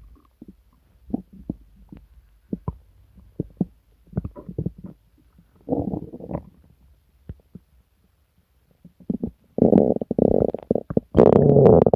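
A person's upset stomach rumbling and gurgling, a sign of the stomach illness with diarrhea and nausea behind it. Scattered short pops and gurgles give way to a longer gurgle about halfway, then, after a short lull, louder drawn-out growls near the end.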